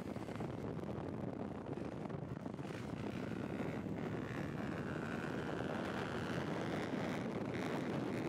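Dirt bike engine running under throttle while the bike is held up in a wheelie. It gets a little louder toward the end.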